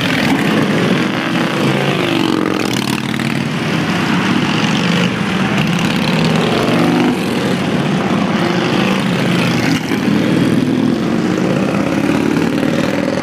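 Indian motorcycles' V-twin engines riding past one after another, each one's pitch rising and falling as it goes by.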